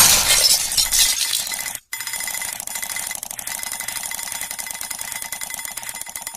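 A loud crash dies away over the first second and a half, then after a brief cut to silence an alarm clock rings with a rapid, steady ringing.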